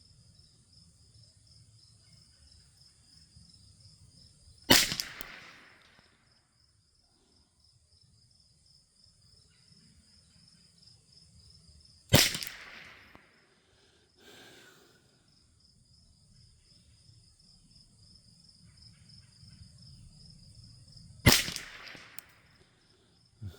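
Three shots from a Thompson/Center T/CR22 .22 LR rifle, several seconds apart, each a sharp crack with a short echoing tail. Insects trill steadily and high-pitched in the background.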